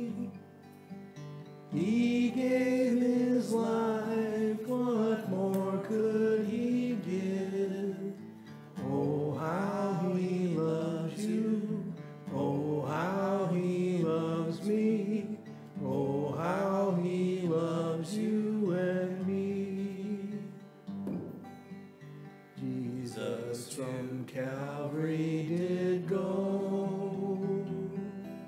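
A slow hymn sung with guitar accompaniment, the phrases separated by brief pauses.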